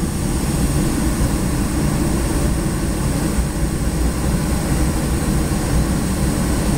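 Hot-air balloon's propane burner firing in one long, steady burn, heating the envelope to climb.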